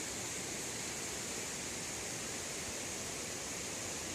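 Steady, even rushing of a mountain river.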